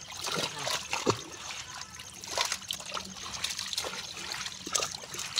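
Water trickling and splashing around a seine net packed with live fish, with irregular splashes and slaps as fish flap in the net and are tossed back into the pond.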